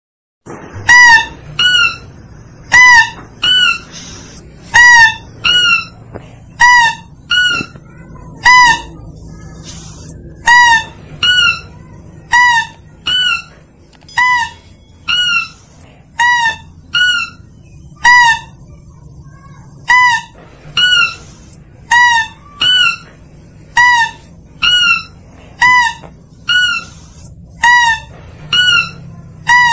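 Mouse-deer lure call: short, high-pitched calls with a bent pitch, repeated about one to two a second and often in pairs, played to draw in mouse-deer (kancil).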